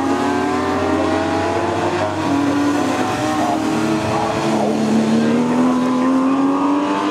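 Porsche 911 race car's flat-six engine accelerating hard, its pitch climbing steadily, with upshifts about two seconds in and again about halfway through. A steady hiss of spray off the wet track runs underneath.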